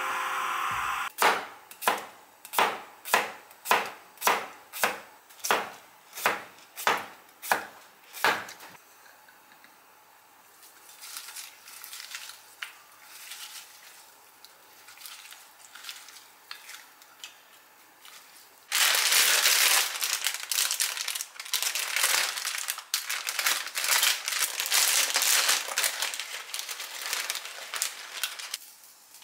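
A knife cutting on a plastic cutting board, about two strokes a second for several seconds. After a quieter stretch of hands moving sliced cucumber in a glass bowl, a plastic food bag crinkles loudly as it is opened and handled.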